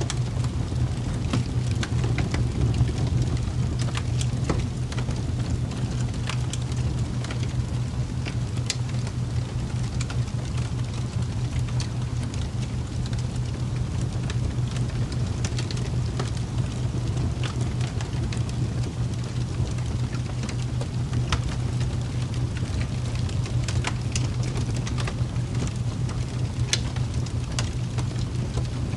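Steady rain ambience: a constant low rumble under an even hiss, with scattered light ticks of drops.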